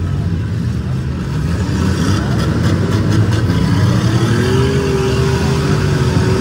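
Demolition derby car engines running at once in a steady, loud drone, with one engine revving up about four seconds in and holding the higher pitch.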